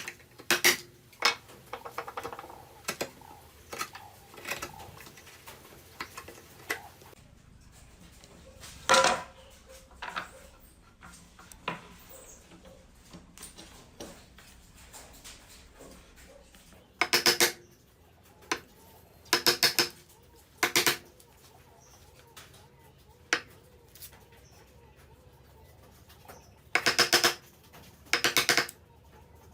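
Hand-tool joinery work on wood: scattered light clicks and knocks, then several short bursts of quick, sharp strikes in the second half.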